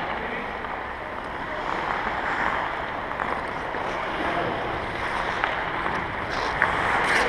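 Ice hockey practice on the rink: a steady hiss of skate blades scraping and carving the ice, with a few sharp clacks of sticks and pucks.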